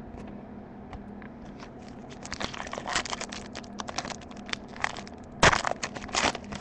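Foil trading-card pack being torn open and crinkled by hand: a run of crackling rustles, with a sharp, loud tear about five and a half seconds in and another just before the end.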